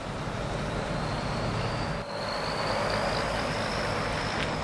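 Background road traffic: the steady noise of a passing motor vehicle, with a faint high whine that rises slowly in pitch.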